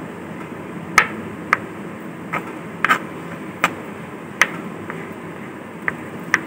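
Kitchen knife chopping boiled potato into small cubes on a plastic cutting board: about nine sharp taps of the blade on the board, unevenly spaced, over a steady background hum.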